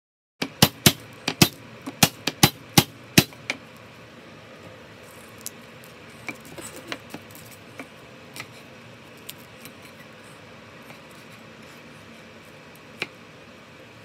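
Cleaver blade striking a plastic cutting board as garlic cloves are chopped: a quick run of sharp knocks starting about half a second in and lasting about three seconds, then scattered lighter taps, with one louder knock near the end.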